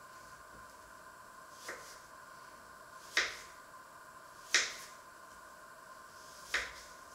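A kitchen knife cutting through food and striking a wooden cutting board, four sharp knocks at uneven intervals, the middle two the loudest, over a faint steady hum.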